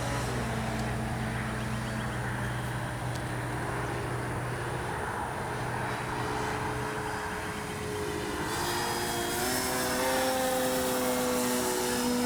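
Great Planes Ryan STA RC plane in flight, its Spektrum Avian 4250-800Kv brushless outrunner motor and 13x6.5 electric propeller whining with slowly drifting pitch. The whine grows brighter and a little louder about eight and a half seconds in.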